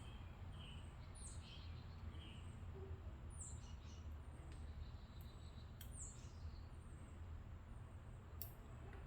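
Faint, high bird chirps repeated about once a second, each a quick falling note, over a low steady hum, with a few faint clicks.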